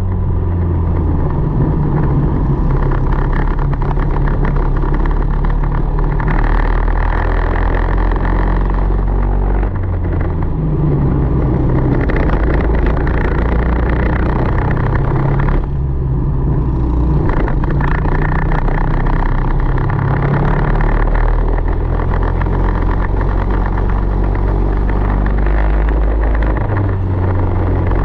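Tillotson 225 single-cylinder four-stroke kart engine running at racing speed, its note rising on the straights and falling as the throttle is lifted for corners, with short lifts about ten and sixteen seconds in.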